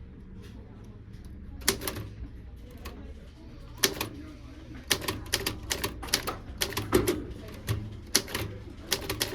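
Typewriter keys being struck one at a time, sharp irregular clacks: a couple of isolated strokes, then a quicker run of keystrokes from about halfway through, over a low steady hum.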